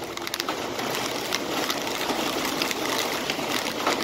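Heavy rain pouring down, a dense steady hiss with many sharp ticks of drops striking close by.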